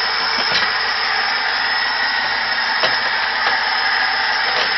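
VAZ-2103 four-cylinder engine running steadily, close up, with a few faint knocks. The knock comes from connecting-rod bearings burnt out by oil starvation.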